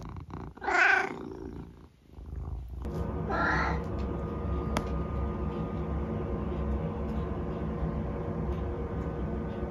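Senior tabby cat meowing loudly once about a second in, then purring steadily, with a second, shorter meow over the purr around three and a half seconds in.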